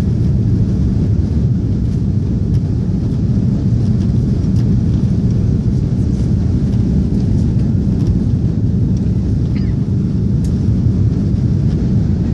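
Airbus A340 airliner climbing after takeoff, heard inside the passenger cabin: a steady, loud low rumble of engine and air noise.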